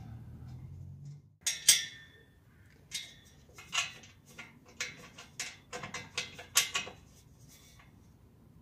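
Spanner and metal fittings clinking while the clamp strap and bolts of an MTZ tractor's fuel tank are worked by hand: a string of a dozen or so sharp metallic taps and clicks, the loudest about a second and a half in. A low hum stops about a second in.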